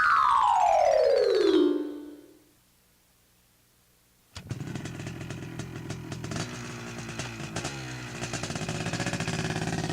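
Sound effect of a single pitched tone with overtones sliding steadily downward over about two seconds. After a short silence, a second, dense effect starts about four seconds in: a busy rattling sound with shifting tones, engine-like in character.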